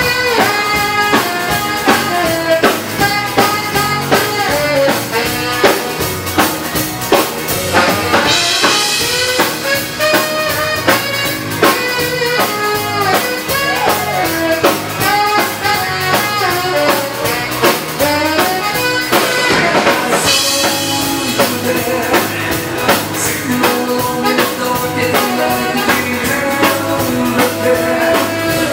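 Swedish dansband playing a bugg live, with a steady drum-kit beat under instrumental melody lines and no singing.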